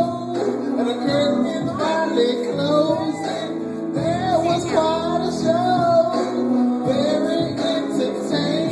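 A woman singing into a handheld microphone over instrumental backing, with held notes that glide between pitches.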